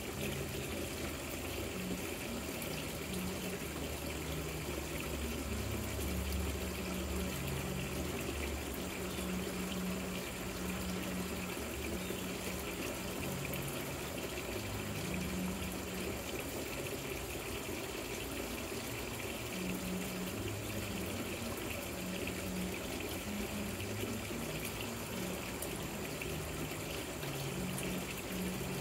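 Water trickling and splashing down a rock patio fountain, a steady gurgling flow.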